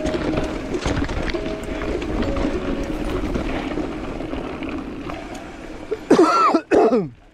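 Wind and riding noise from a mountain bike on a trail, with scattered knocks and rattles and faint music underneath. About six seconds in comes a short, loud sound falling in pitch, then a brief silence.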